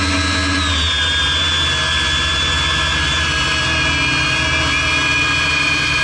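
Quadcopter's electric motors and propellers whining as heard from the onboard camera: several high steady tones that dip slightly in pitch about half a second in and drift as it flies, over a low rumble.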